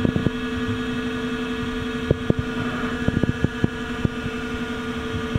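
Southwestern Industries TRL 1630SX CNC lathe spindle running steadily at 1500 RPM with no cut, a steady hum with a fainter high whine. Sharp clicks come near the start, about two seconds in, and in a quick cluster a little after three seconds.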